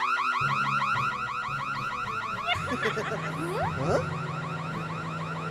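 Alarm siren set off by pressing an alarm button: a loud electronic tone rising over and over several times a second in a fast, even warble. A steady low hum runs beneath it, and a few short sliding tones come in the middle.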